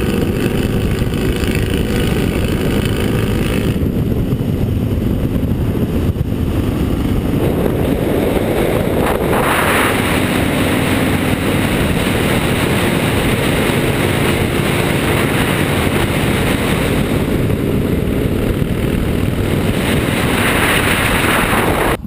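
Motorcycle riding at speed on a fast road: steady engine noise under heavy wind rush on the on-board camera's microphone.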